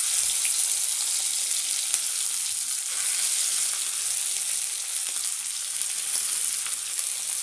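Spiced mashed potato frying in hot oil in a kadai, a steady hiss of sizzling.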